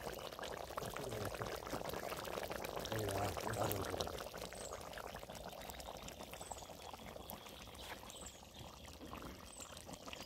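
Thick tomato-and-brinjal curry bubbling at a steady boil in an open aluminium pot over a wood fire, a dense run of small bubbling pops.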